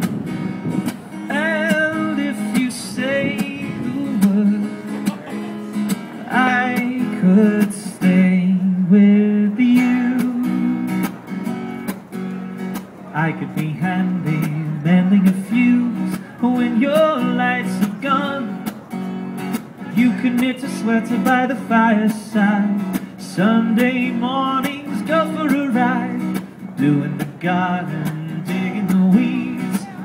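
A man singing and strumming an acoustic guitar, a live folk-style song with a steady strummed rhythm under the vocal line.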